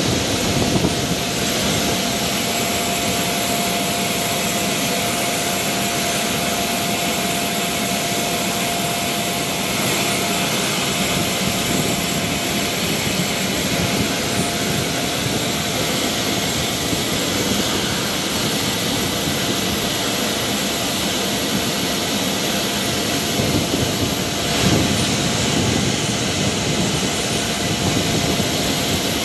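Steady jet-turbine noise: a continuous rush of air with a high, thin whine over it and a mid-pitched tone that fades out about halfway through.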